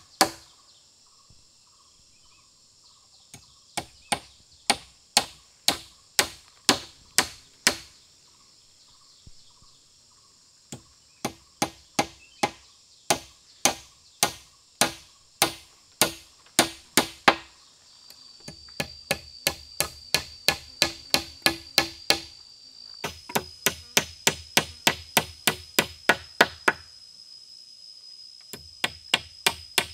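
Hatchet striking small wooden poles, sharp regular blows about two a second in runs with short pauses. From about halfway a steady high insect whine runs under the blows.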